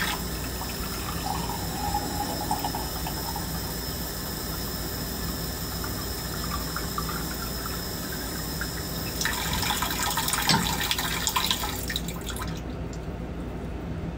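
Steady rush of running water. It thins out sharply about twelve seconds in.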